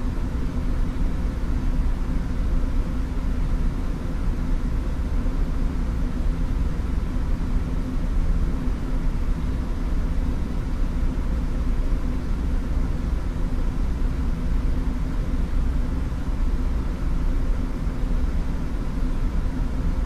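Engine of a DRC1000-series diesel railcar idling while the train stands still: a steady low rumble with a faint even hum.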